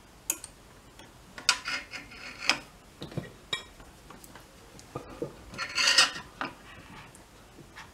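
Small metal hand tools, a hemostat clamp and a soldering iron, handled on a glass sheet while desoldering capacitors from a circuit board: scattered metallic clicks, clinks and scrapes, the loudest cluster about six seconds in.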